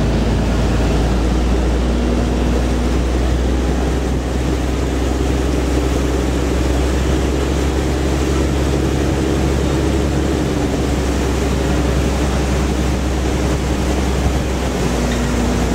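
River express boat's engine heard on board, running steadily under way with a low drone, over a constant rush of water and wind.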